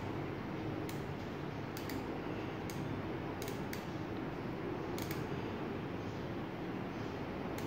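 Automatic solder-feed soldering gun working as solder is fed to the tip: a scattering of short clicks at uneven intervals, some in quick pairs, over a steady background hum.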